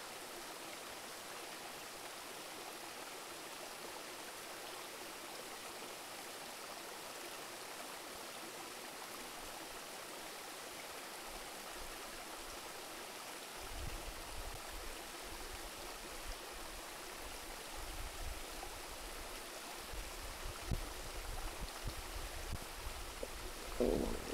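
Shallow river running steadily over rocks. About halfway through, a low rumble joins in and grows stronger toward the end.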